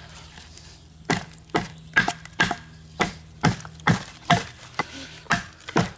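Batoning with a budget Ozark Trail knife: a wooden baton strikes the knife's spine, driving the blade down through a piece of wood. Eleven sharp, evenly spaced knocks, about two a second, beginning about a second in.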